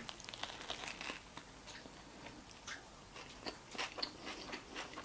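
Biting into and chewing a seeded Subway sub roll with chicken filling. Soft crunching and crackling of the crust, thickest in the first second, with a few louder crunches a little before the end.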